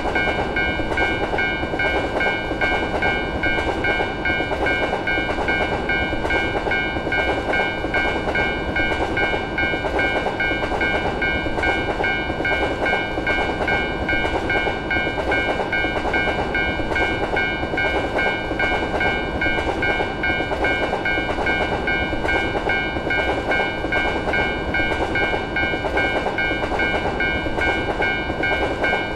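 Japanese railroad crossing alarm ringing its 'kan-kan' over and over in an even, fast rhythm, over the running noise of a train passing along the rails with clickety-clack.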